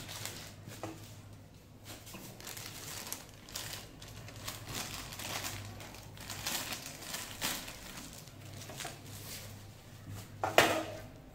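Thin plastic packaging bags crinkling and rustling in irregular handfuls as they are pulled off a new gas stove's burner stands, with one louder sharp knock near the end.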